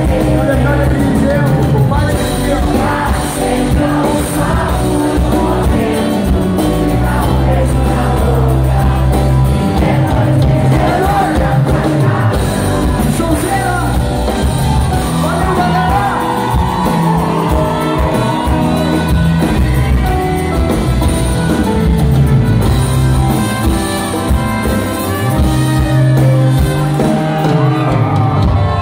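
Live reggae band playing with singing over it: acoustic guitars, drum kit, congas, keyboards and bass, with shouts from the stage or audience.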